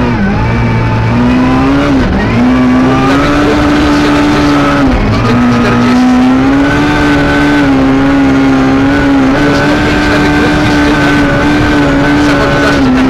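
Suzuki Ignis S1600 rally car's four-cylinder engine heard from inside the cabin, held at high revs at full throttle on a snowy stage, with four brief dips in revs as the driver shifts up through the gears or lifts.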